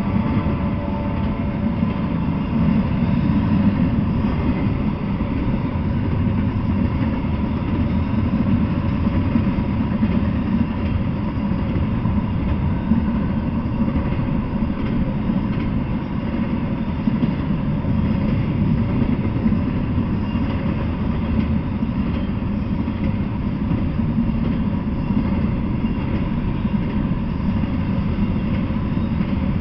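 Freight train of double-stack container well cars rolling past: a steady rumble and rattle of wheels on the rails.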